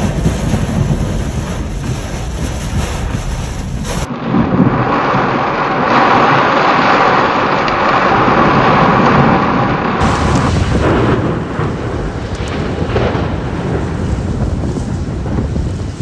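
Heavy rain and strong wind of a thunderstorm, a dense steady noise throughout. Its character changes abruptly about four seconds in and again about ten seconds in, and the middle stretch is the loudest.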